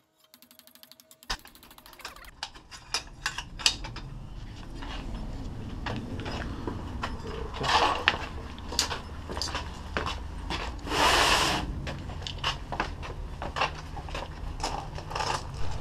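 Handling noise as a sheet-metal panel is picked up and carried: scattered knocks, clanks and footsteps over a low rumble, with a longer rustling rush about two thirds of the way through.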